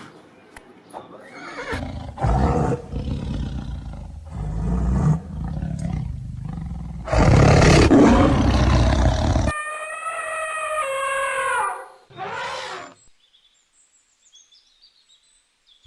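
Animal calls: a run of loud, rough roars, then a long pitched call that falls slightly in pitch, and faint high chirps near the end.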